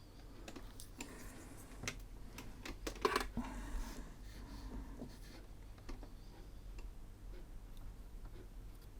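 Irregular light clicks and taps of small hand tools working on a circuit board during soldering, busiest and loudest about three seconds in, over a faint steady low hum.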